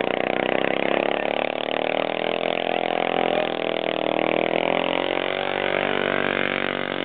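Arctic Cat ATV engine running hard under load as it ploughs through deep mud, its pitch wavering up and down with the throttle. A small-bore engine labouring in a deep pit.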